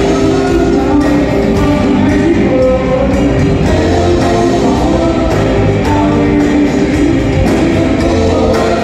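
Live rock band playing loudly through a PA: drums, electric guitar and singing.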